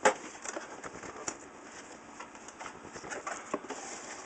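Cardboard shipping box being opened by hand: a sharp knock right at the start, then scattered clicks and rustling of the flaps and the packing peanuts inside.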